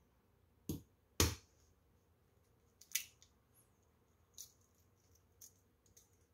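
Shell of a whole steamed egg being cracked by hand: two sharp taps about a second in and another crack near three seconds, then lighter crackles as pieces of shell are peeled off.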